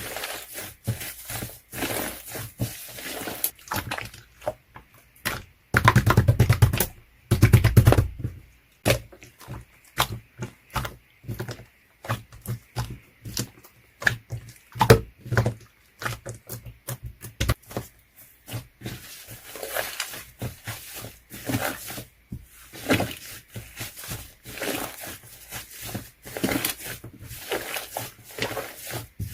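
Hand-played slime being poked, squished and stretched, making many sticky clicks and pops. There is a fast run of loud crackling pops about six seconds in that lasts about two seconds.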